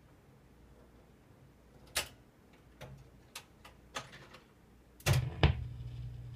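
1953 Seeburg HF100G jukebox's record-changing mechanism at work as it loads a 45 for play: one sharp click about two seconds in, a run of lighter clicks, then two heavy clunks about five seconds in. A steady low hum starts with the clunks and keeps on.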